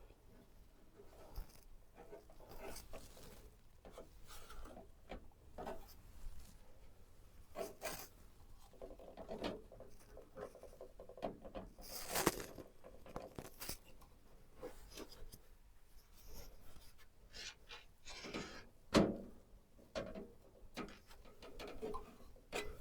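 Hands handling PC parts in and around a computer case: scattered small clicks, rubbing and scraping, with a sharper knock about 19 seconds in.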